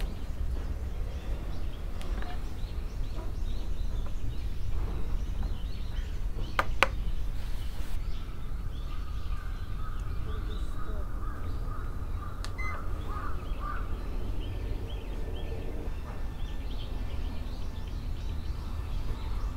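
Birds calling faintly over a steady low rumble, with two sharp clicks about six and a half seconds in.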